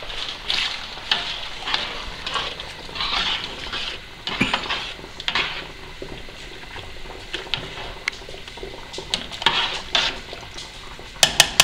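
A long metal spoon stirring a large stainless-steel stockpot of seasoned crawfish-boil water: irregular swishes of the liquid with scrapes and clinks of the spoon against the pot. A quick run of sharp taps begins right at the end.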